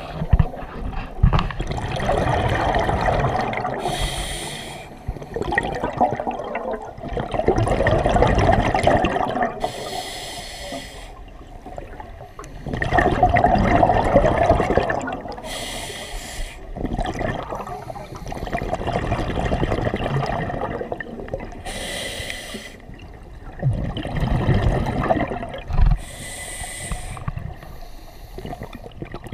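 Scuba diver breathing through a regulator underwater: a short hissing inhale about every six seconds, each followed by a longer bubbling exhale.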